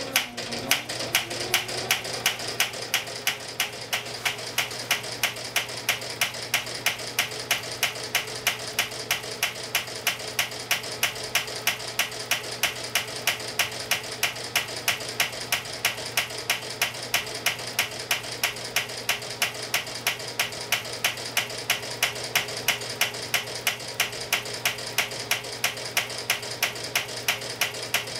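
A homemade single-cylinder flywheel engine being turned over by a belt-driven electric motor. The motor hum rises and settles about a second in, then runs steadily under an even run of sharp ticks, about three a second, as the engine tries to fire on a new spark plug.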